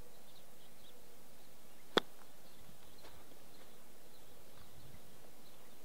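A single sharp strike about two seconds in: a golf club hitting a bunker shot out of a greenside bunker with little sand in it, played from a downslope.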